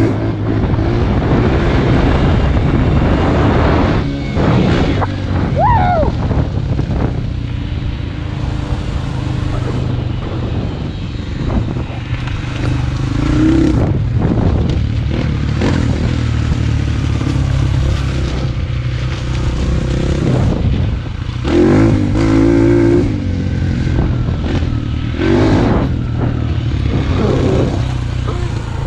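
Dirt bike engine running as it is ridden, revving up and easing off several times, most strongly about halfway through and twice near the end. Wind rushes over the helmet-mounted microphone.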